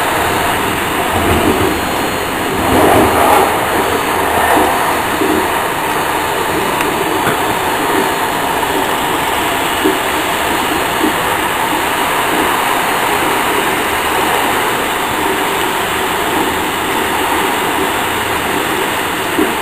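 InterCity passenger train running at speed, heard from inside the last carriage: a steady rumble of wheels on rail that swells louder about three seconds in, with a few faint clicks.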